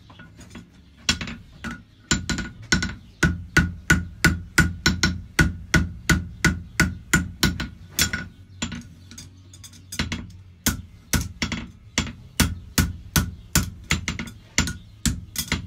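Hammer blows on a red-hot steel horseshoe held in tongs on an anvil, a farrier shaping the shoe hot. The blows come in a steady rhythm of about two to three a second, each with a ringing note from the anvil, with a short break about a second in and a longer one a little past the middle.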